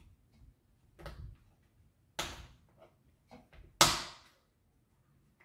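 Kitchen knife chopping a bar of dark chocolate on a cutting board: a few irregular knocks of the blade coming down through the chocolate onto the board, three clear chops with lighter taps between, the last the loudest.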